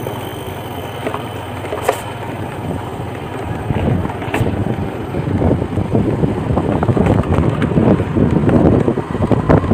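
Motorbike engine running as the bike rides along a dirt track, with wind buffeting the microphone. The noise grows louder and rougher from about halfway through.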